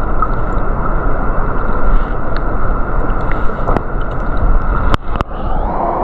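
Rushing stream water heard with the microphone underwater: a dense, muffled rush. Two sharp clicks come near the end.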